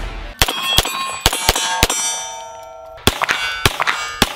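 Rapid pistol fire at steel targets, each hit clanging and ringing. A quick string of about six hits is followed by a fading ring, and a second fast string starts about three seconds in.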